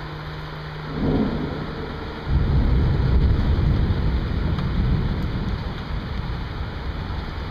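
Steady rain with a crack of thunder about a second in, then a louder low rumble of thunder that starts suddenly after about two seconds and slowly fades.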